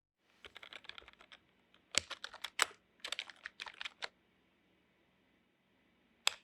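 Typing on a keyboard: rapid clicking keystrokes in three bursts, the first fainter and duller, then a pause and one last sharp keystroke near the end.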